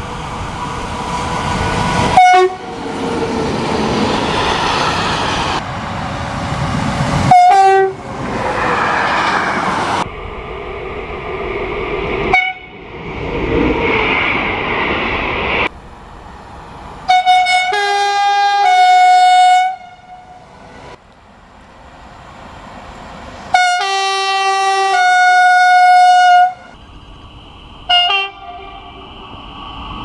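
Locomotive horns from passing trains, edited together: several short sharp blasts, then two longer two-note horn calls near the middle and later on, over the rumble of the passing trains.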